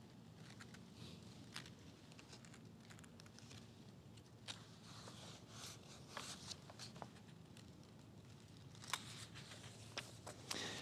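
Faint rustling and scattered soft ticks of Bible pages being turned.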